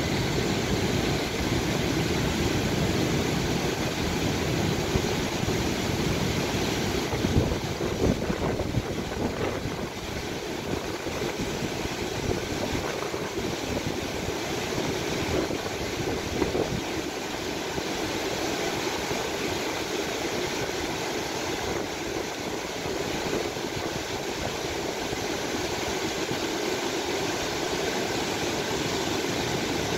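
Fast mountain river rushing over rocks: a steady roar of white water, with wind rumbling on the microphone.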